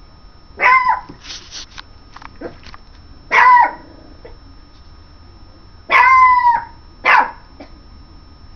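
Yorkshire Terrier puppy yapping: four high-pitched barks, the third held longer than the others.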